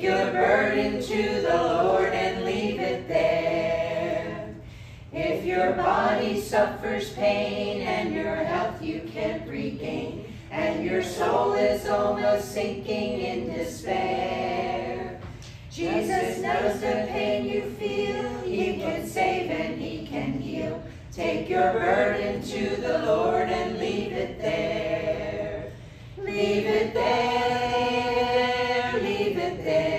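A group of voices singing a hymn together, in phrases of about five seconds with short breaks for breath between them.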